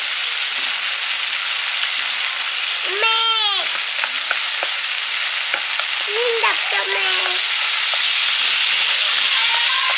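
Food sizzling as it fries in a hot pan, with a few light clicks in the middle; the sizzle gets a little louder about seven seconds in. A short, high voice-like call sounds about three seconds in.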